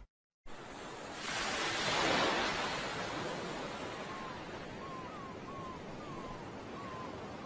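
Ocean surf washing steadily, with one wave swelling up about a second in. From about four seconds in, a run of short high chirps repeats a little more than once a second.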